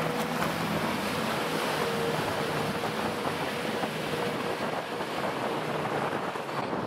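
Volkswagen 1.9 TDI diesel jet boat powering away across the lake: the engine and water jet sound as a faint steady tone under a wash of churning wake water and wind buffeting the microphone.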